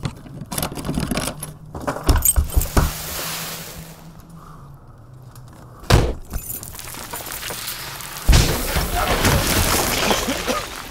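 Scraping, rustling and clattering knocks as a person squeezes through a narrow gap in a rough, crumbling wall. A sharp bang comes about six seconds in, then a loud hissing noise from about eight seconds on.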